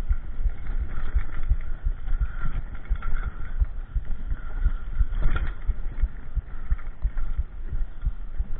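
Mountain bike riding fast over a rough dirt trail, with the action camera and its mount rattling and knocking at every bump, and a harder jolt about five seconds in.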